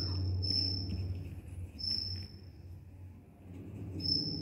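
Faint scratching of a pen writing on paper, over a low steady hum and a high, thin, steady trill that drops out twice for a moment.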